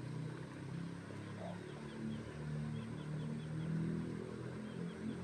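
An engine running steadily in the background, its pitch shifting slightly, with a faint run of short high chirps in the middle.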